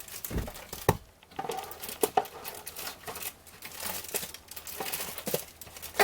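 Packaging crinkling and tearing as a box of baseball card packs is handled and opened, with irregular crackles and a few sharp clicks.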